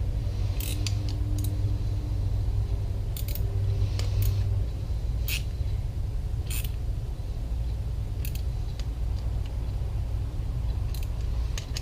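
Scattered light clicks of hand tools and small metal parts as the screws of an outboard's mechanical fuel pump are fitted and tightened, over a steady low hum.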